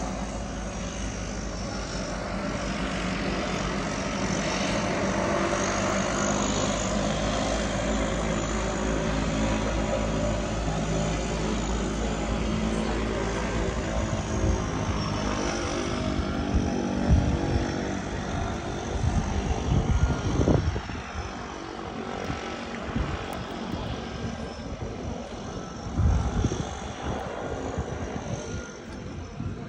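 Seaplane's propeller engines running at takeoff power, a steady drone that fades away after about fifteen seconds. A few low bumps of wind on the microphone follow in the second half.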